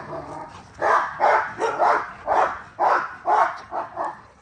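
An American bully dog barking over and over, about two to three short barks a second: excited play barking at its owner to get him to play with a rope toy.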